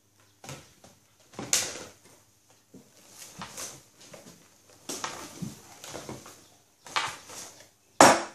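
Scattered rustling and light knocks of things being handled at a table, with one loud bump near the end.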